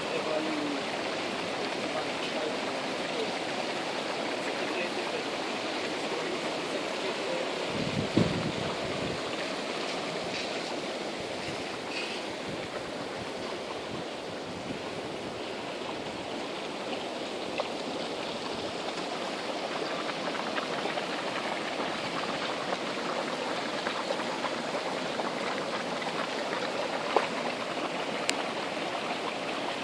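Steady rushing, water-like noise of an active volcanic geothermal vent, a boiling hot spring hissing and bubbling without a break. There is a single low thump about eight seconds in.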